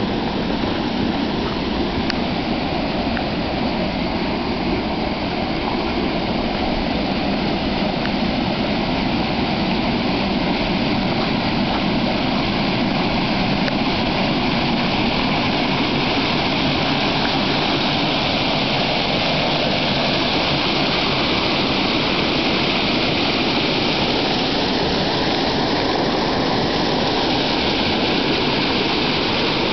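A small pond waterfall: water pouring and splashing steadily into the pond.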